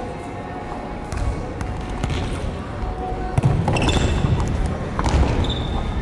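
Futsal play on a wooden gym floor: scattered thuds of the ball and running feet, with short squeaks of court shoes at about four seconds in and again near the end.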